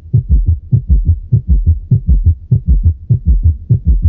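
Recorded heart sounds of a child: a fast gallop rhythm of low thuds, about four to five a second. The extra sound in each beat is typical of summation of the third and fourth heart sounds.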